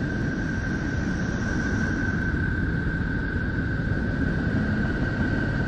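Planetary radio and magnetic-field data from Neptune converted into sound: a steady low, dense noise with a constant high tone running through it. A fainter, higher tone fades out about two seconds in.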